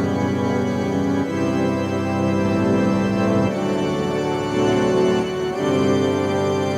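Keyboard playing slow, held organ-toned chords, moving to a new chord about every two seconds.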